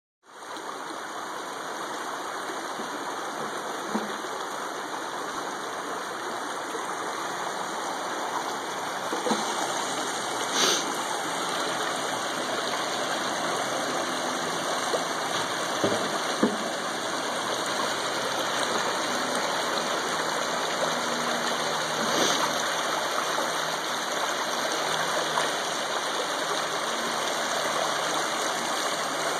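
Shallow creek water running over gravel and rocks: a steady rushing and rippling, with a few brief knocks over it.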